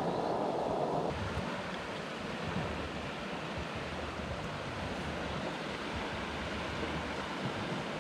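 Steady rush of river water flowing past. About a second in the sound changes from a louder, deeper rush to a lighter, even hiss.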